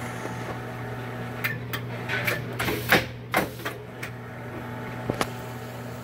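Shanklin A26A automatic L-bar shrink-wrap sealer cycling on a small product: a steady machine hum under a run of sharp mechanical clacks and knocks, loudest a little before halfway through.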